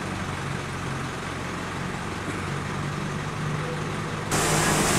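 A motor vehicle's engine running steadily with a low hum. About four seconds in, the sound cuts suddenly to a louder rush of wind noise.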